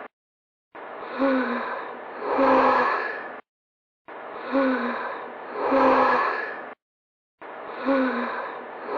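A person's breathy voice, like a gasp followed by a longer sigh, played as the same short clip over and over, about every three seconds, with dead silence between repeats.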